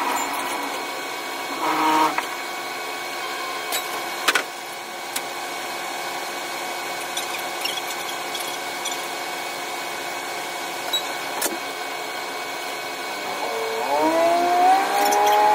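KiHa 185 series diesel railcar running, its engine and running noise sped up six times into a high, drill-like whine with scattered sharp clicks. Near the end the engine note climbs in pitch and settles higher as it revs up.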